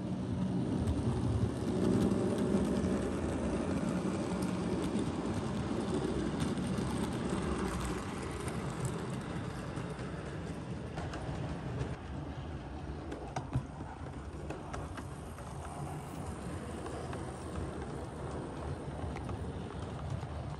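00 gauge Hornby model locomotives running on the layout's track: a steady mechanical rumble with fine clicking, loudest in the first few seconds as the LNER Q6 passes close, then easing off. A King class loco with coaches runs by near the end.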